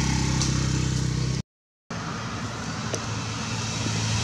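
A motor vehicle engine idling steadily, with the audio cutting out to dead silence for about half a second a second and a half in.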